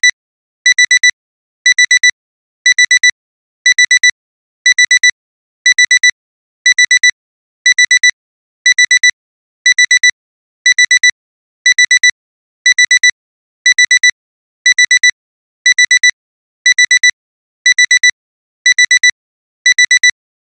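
Alarm-clock alarm beeping in bursts of four quick, high-pitched beeps, about one burst a second, ringing on without stopping: the signal that the timer has run out.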